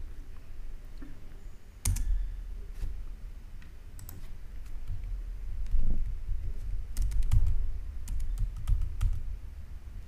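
Keystrokes on a computer keyboard as a terminal command is typed: scattered sharp clicks, a few at a time, with a steady low rumble underneath.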